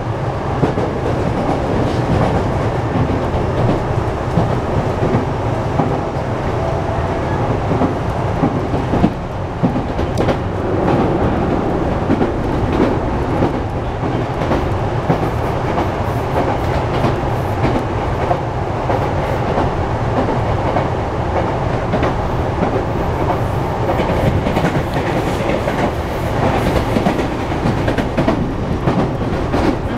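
Interior running noise of a Sotetsu 12000 series electric train at speed: a steady rumble of wheels on rail with scattered clacks over rail joints.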